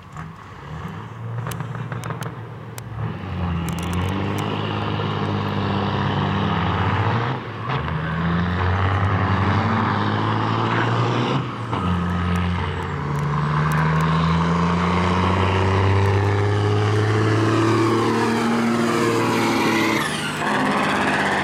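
Big-rig semi-truck diesel engines under full throttle in a drag race. The engine note climbs through each gear and drops at every shift, with more than one engine heard at once. Near the end the sound sweeps down in pitch as the trucks go by.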